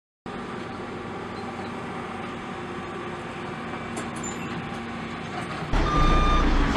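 Vacuum truck engine running steadily, then getting louder about six seconds in as the truck starts to reverse, with one beep of its backup alarm near the end.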